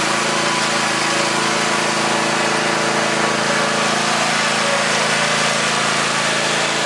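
Small gasoline engine of a Huskee 22-ton log splitter, running at a steady speed.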